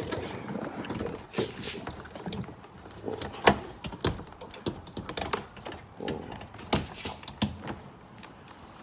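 Irregular clicks, knocks and rustling of hands working on a car door's interior trim and handle parts, with one sharp knock about three and a half seconds in.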